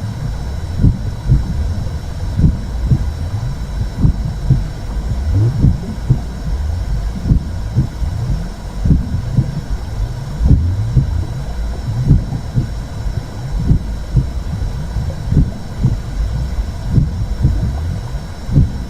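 Simulated womb sound for soothing a baby: a steady low rumbling whoosh with a repeating soft pulse like a heartbeat.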